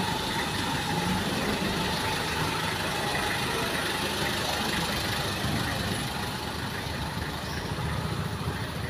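Street traffic noise, with a motor vehicle's engine running steadily throughout.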